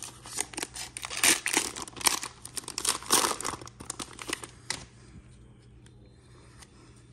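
Plastic wrapper of a football trading-card pack being torn open and crinkled, a run of crackling rips loudest about a second in and again about three seconds in, then stopping at about five seconds.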